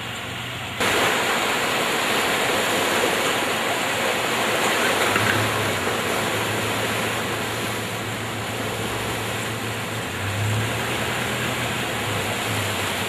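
Fast-flowing muddy floodwater rushing, a steady noisy wash that starts abruptly about a second in. A low hum comes and goes from about halfway through.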